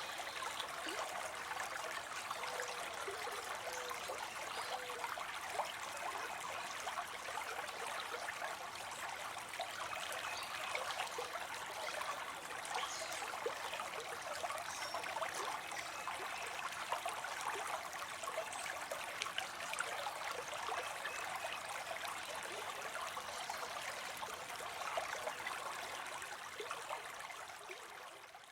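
Small stream of water spilling into a pond: a steady trickling splash of falling water, easing down near the end.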